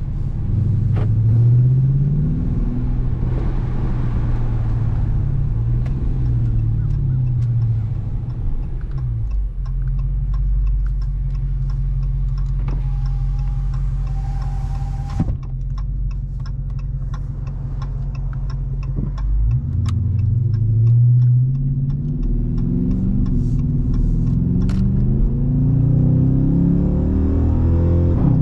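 Dodge Charger R/T's 5.7-litre HEMI V8 under way: it pulls up through the gears at the start, settles to a steady low drone through the middle, then accelerates again from about twenty seconds in, its pitch climbing and dropping back with each upshift. A faint regular ticking and a brief high tone sit under the drone partway through.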